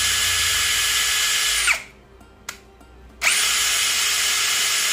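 Cazar CZ-21VD 21 V brushless cordless drill spinning freely with no load, a steady high-pitched motor whine, first in low gear. It winds down under two seconds in, and after a short pause it spins up again in high gear.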